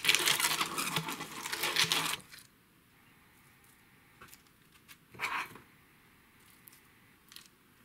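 A basting brush scrubbing over a foil-lined baking pan, a dense crinkly scratching that stops about two seconds in. After that it is quiet except for a few soft clicks and a short scrape about five seconds in as cookie dough is forked onto the foil.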